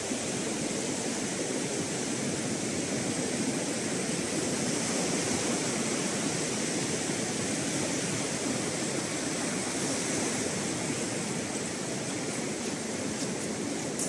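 Steady wash of surf breaking on a sandy beach, a constant hiss of waves.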